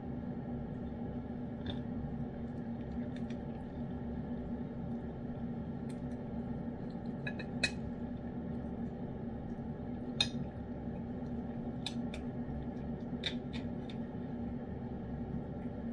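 Metal spoon clinking and scraping against an opened can of wet cat food as the food is scooped out: scattered sharp clinks, two of them louder, over a steady low hum.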